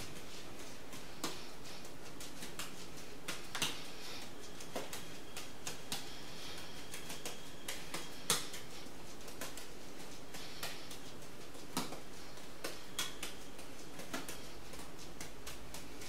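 Three juggling balls slapping softly into the hands as they are caught, irregular light taps over a steady hiss of room noise; one sharper tap about eight seconds in.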